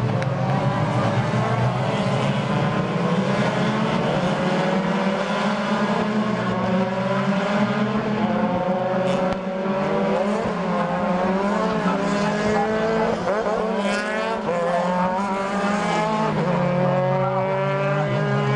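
Several Dallara Formula 3 single-seaters' four-cylinder racing engines accelerating hard together out of a chicane. Overlapping engine notes keep rising in pitch and dropping back at each upshift.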